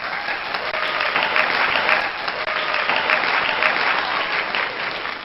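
Crowd applause, many hands clapping steadily, cutting off abruptly near the end.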